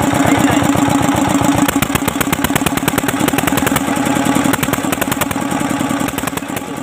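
Diesel engine running with a steady, rapid chugging beat while smoke pours from it. It is running badly and spitting fire from the silencer, which the owner traces to a mis-set fuel-pump stroke (shim adjustment) or a clogging injector nozzle that leaves the diesel unburnt.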